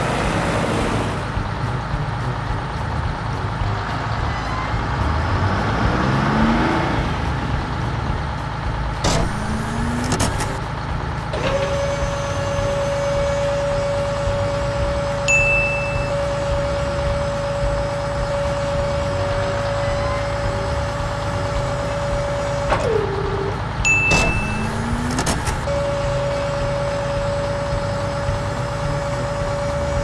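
Cartoon heavy-vehicle sound effects: a steady engine rumble with a high machine whine that holds for long stretches, drops off with a quick falling pitch twice, and is joined by a few short rising whirs.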